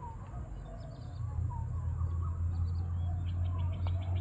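Birds calling outdoors, many short chirps and quick repeated high notes, over a steady low hum that grows louder about a second in.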